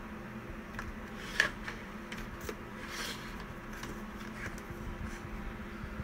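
Scattered light clicks and rustles over a steady low hum, with one sharper click about a second and a half in.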